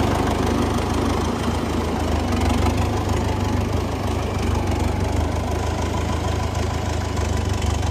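Diesel tractor engine idling steadily.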